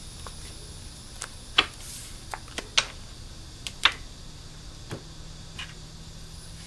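Tarot cards being drawn and laid down on a wooden tabletop: about eight light, irregular clicks and taps.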